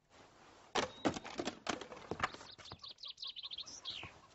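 Cartoon sound effects: a few sharp knocks, then a quick run of high chirps that ends in a falling whistle.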